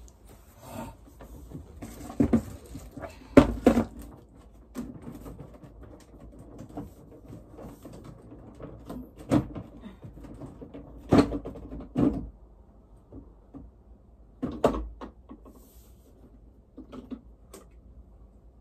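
Hard plastic knocks and clatters as a water-holding appliance is opened by hand: its front panel is pulled off and parts are lifted out. Scattered single knocks, loudest a few seconds in and again around the middle.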